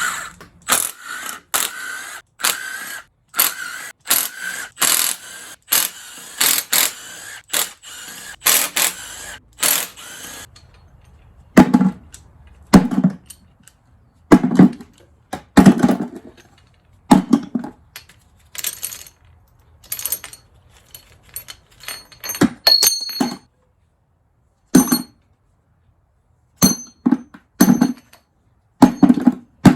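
A ratchet wrench clicking rapidly as the rocker arm bolts on a Jeep 4.0L inline-six cylinder head are backed out. From about ten seconds in, this gives way to separate metal knocks and clinks with a ringing tone, as the steel rocker arms and bridges are lifted off and set down.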